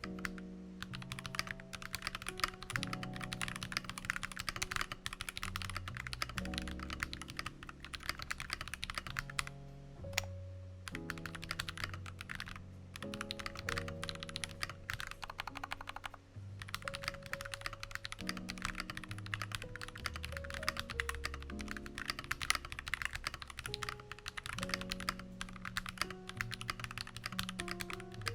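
Continuous fast typing on an Akko Mod001 hotswap mechanical keyboard with lubed Akko CS Radiant Red linear switches and Cherry-profile keycaps: dense key clicks with brief lulls about ten and sixteen seconds in. Background music plays underneath.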